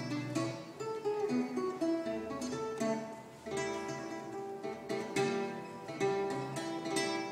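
Solo classical guitar played fingerstyle: a melody of plucked notes over bass notes, each note ringing on after it is struck.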